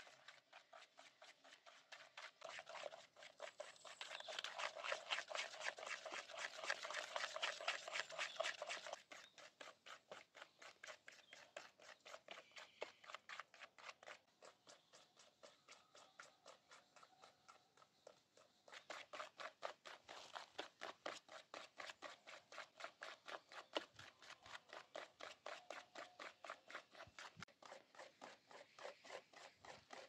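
Eggs and batter being beaten by hand in a bowl with a fork and a coil whisk: quick, even strokes clicking against the bowl, about three or four a second, louder from about three to nine seconds in and again in the second half.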